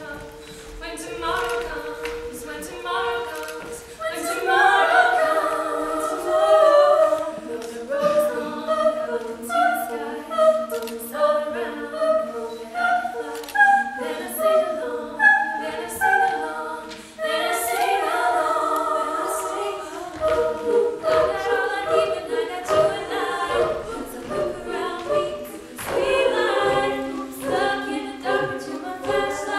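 A female a cappella group singing: a moving lead line over held background notes, with short sharp hits keeping a steady beat that is plainest in the second half.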